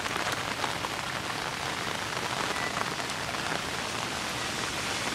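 Hard rain falling steadily, an even hiss with scattered close drops ticking, as on an umbrella overhead.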